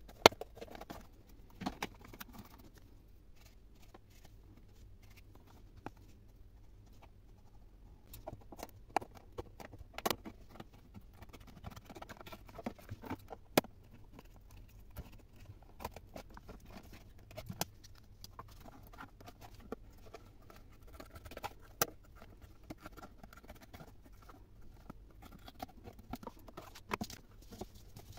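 Quiet handling sounds of a thin plastic food tub: scattered clicks and taps as it is turned over and pressed, and scissors snipping through the plastic.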